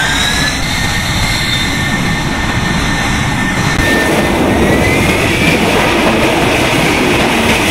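F-35B Lightning II jet engine running loudly at high power as the STOVL fighter, lift-fan doors open, makes its take-off roll. A steady jet noise carries a high whine that climbs near the start and again about five seconds in.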